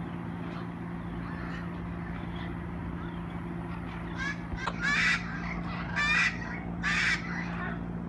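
Macaws squawking: about five seconds in come three loud, harsh, rasping calls roughly a second apart, after a softer call, over a steady low hum.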